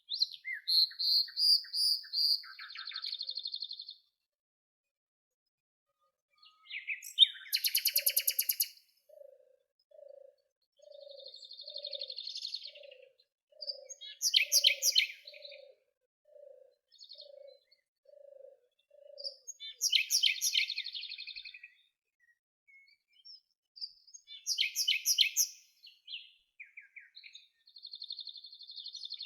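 Songbirds singing in separate phrases of bright chirps and fast trills, with short silent gaps between them. Through the middle, a lower note repeats evenly, more than a dozen times.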